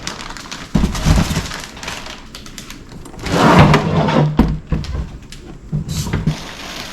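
Handling noise from unboxing: a couple of thumps about a second in, then a louder rustling and scraping stretch in the middle, and a few lighter knocks near the end, as the packaging and parts are moved about.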